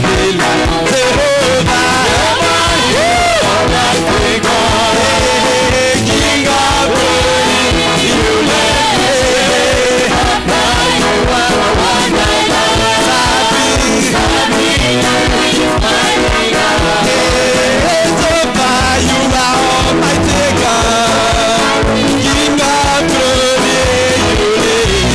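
Live gospel praise-and-worship music: singers on microphones lead the song over a band with a steady drum beat.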